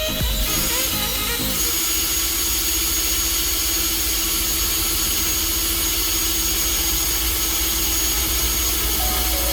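A power tool running at a steady speed: an even hiss with a steady hum under it, settling into its steady note about a second and a half in.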